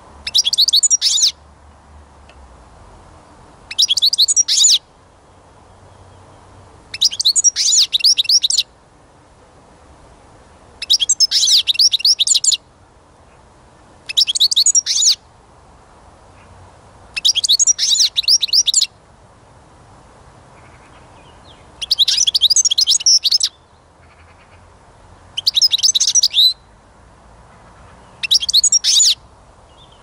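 European goldfinch singing: nine short phrases of rapid, high twittering, each a second or two long, with pauses of about two seconds between them.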